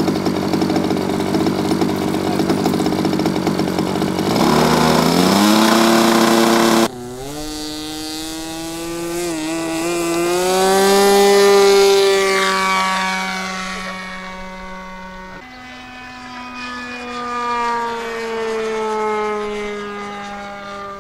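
Radio-control model airplane's piston engine idling, then revved up with a rising pitch about four seconds in. After a cut, the engine runs at high throttle as the plane takes off and climbs away, its pitch sliding up and down as it passes.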